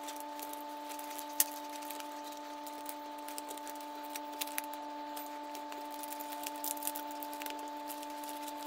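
Braided textile cable sleeve being twisted by hand around a 3D printer's wiring bundle: scratchy rustling and small scattered clicks, with one sharper click about a second and a half in. A steady hum of several tones runs underneath.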